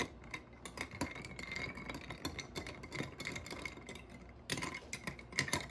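Light clicks and taps in a quick, irregular series, bunched closer together near the end.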